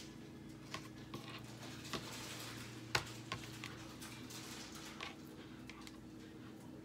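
Faint, scattered knocks and taps of raw fish fillets and a kitchen knife being handled on a wooden cutting board, the sharpest knock about three seconds in, over a steady low hum.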